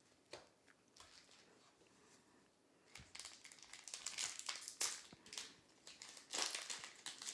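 Foil wrapper of a Magic: The Gathering collector booster pack crinkling as it is handled and opened, starting about three seconds in after a few faint clicks.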